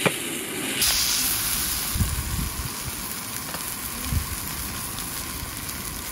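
Meat sizzling on a hot camp grill: a steady frying hiss that swells about a second in, with a click and a few dull knocks as it is handled.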